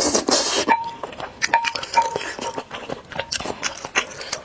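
An eating utensil clinking against a bowl three or four times in the first two seconds, each clink ringing briefly, amid a noisy burst at the start and the small clicks of noodle eating.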